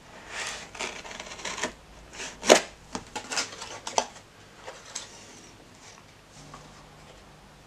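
Small cardboard box being slit open with a knife and its flaps pulled open by hand: a run of irregular scrapes, rustles and taps of cardboard and tape, the loudest about two and a half seconds in, with only faint handling after about five seconds.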